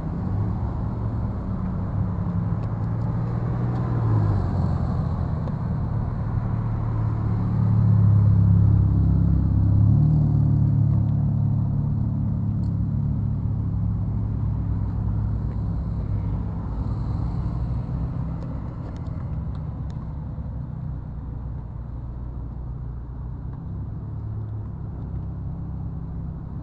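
A motor vehicle's engine running low and steady, loudest about eight to ten seconds in, then fading gradually.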